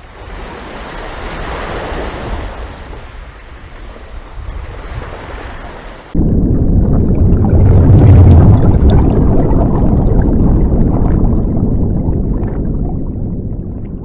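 Sea-and-wind rushing sound effect. About six seconds in it cuts abruptly to a much louder, deeper rumbling rush that swells and then slowly fades near the end.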